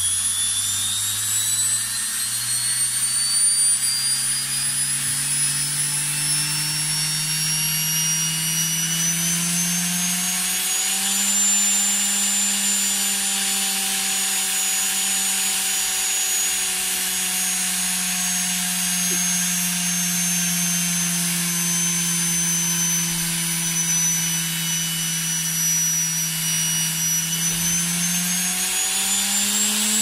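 Washing-machine universal (brushed) motor running unloaded on a triac dimmer, its whine climbing in pitch as the speed is turned up over the first ten seconds or so. It then holds high, sinking slightly, and rises again near the end.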